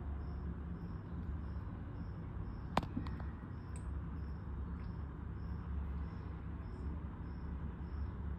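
A steady low hum runs under a faint, short, high chirp repeating evenly about twice a second. A single sharp click comes a little under three seconds in.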